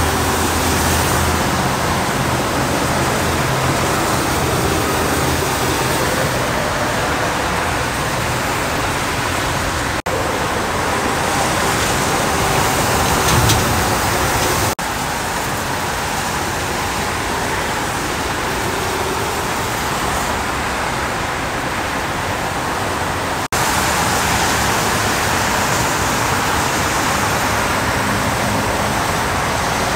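Freeway traffic on wet pavement: a steady hiss of tyres on the wet road mixed with passing engines. The sound breaks off and resumes at a slightly different level three times.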